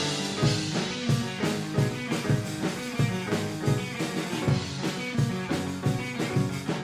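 Rock band playing an instrumental passage: guitar and drum kit with a steady beat.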